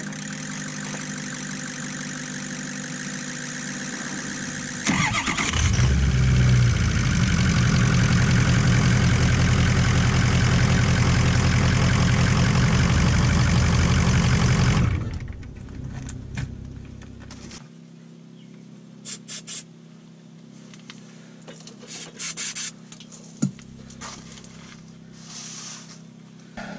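Ford F350 pickup engine started about five seconds in after a steady hum, running loudly for roughly ten seconds before being shut off. Afterwards come a few light clicks and knocks.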